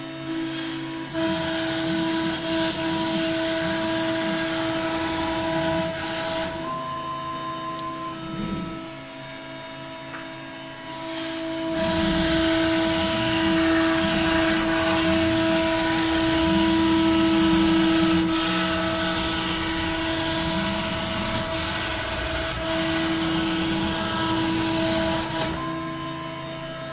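Router spindle milling PVC plastic: a steady whine with the hiss of the cutter biting into the sheet, loud for the first few seconds, easing off, then loud again from about twelve seconds until shortly before the end.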